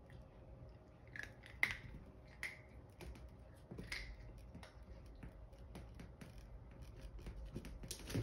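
Chihuahua puppy's claws clicking and scratching on a tipped-over plastic wastebasket and its plastic liner: scattered sharp ticks and a few short scrapes, the loudest about a second and a half in and just before the end.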